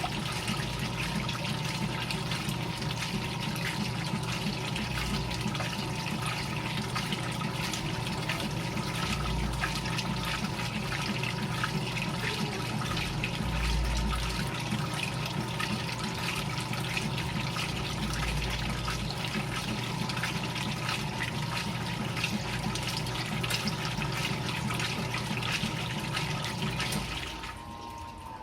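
GE Filter-Flo washing machine running, with water rushing and splashing inside it over a steady low motor hum; the sound drops away abruptly about 27 seconds in.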